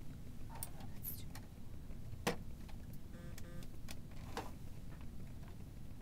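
A short run of quick, evenly spaced electronic beeps near the middle, a hearing-test tone played by a computer. Under it runs a steady low room hum, with a few scattered clicks, the loudest about two seconds in.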